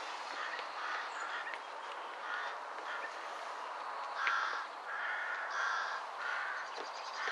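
Crow cawing: a series of short, harsh calls about half a second apart, loudest between about four and six and a half seconds in, over steady background noise.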